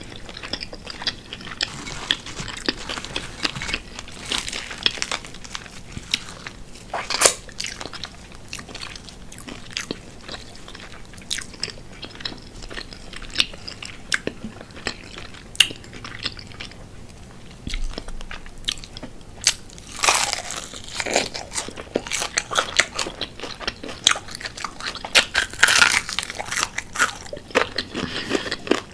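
Close-miked biting and chewing of crispy fried chicken wings: irregular crunches, with a dense run of loud ones about two-thirds of the way through.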